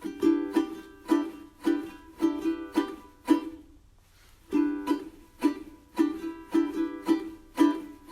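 Background music on a plucked string instrument: chords strummed about twice a second in a steady rhythm, with a short break about three and a half seconds in.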